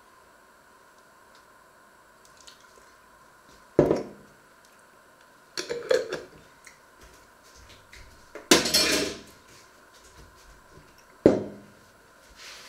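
Kitchen utensils knocking on a wooden counter: a jam jar and a table knife set down and handled, four separate clatters a couple of seconds apart, the third a longer rattle. A faint steady hum runs underneath.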